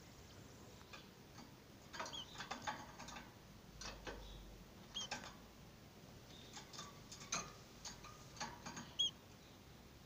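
Canary moving about in a wire cage: scattered light clicks and taps, with three short high chirps.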